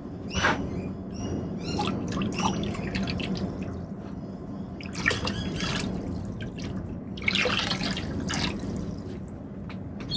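Acid poured in a thin stream from a plastic jug into a plastic tub of water, trickling and splashing in several spells as the jug is tipped.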